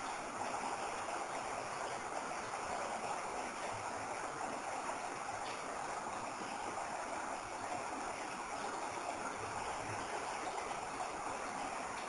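Water dripping steadily from a rock overhang, many drops falling at once so that they blend into a continuous splashing hiss, with a few single drops standing out.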